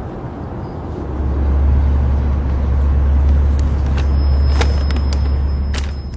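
A steady low rumble, like a vehicle engine or road traffic, with a few sharp clicks in the last two seconds.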